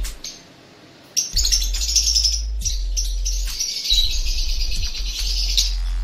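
Lovebirds chattering in rapid, high chirps, starting about a second in after a short quiet gap. Background music with a steady deep bass and occasional thumps plays underneath.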